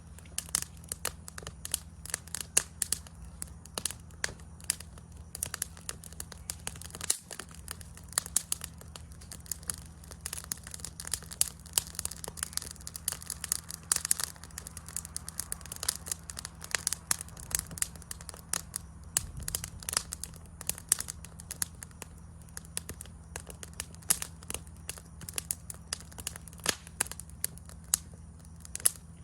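Wood campfire crackling, with a dense run of irregular sharp pops and snaps over a steady low rumble.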